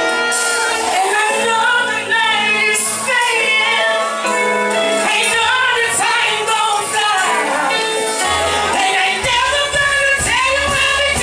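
A male singer singing live into a microphone over a backing track on a stage sound system. A deep bass line comes in near the end.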